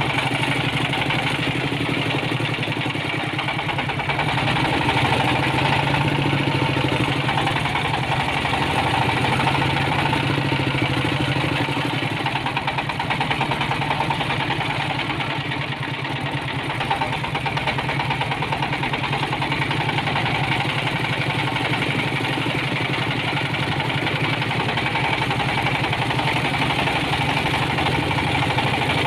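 Single-cylinder diesel engine of a homemade ledok dump truck running steadily under way, an even fast chugging heard close up from the open driver's seat.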